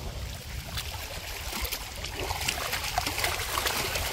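Water trickling and splashing in small irregular spatters, over a steady low rumble.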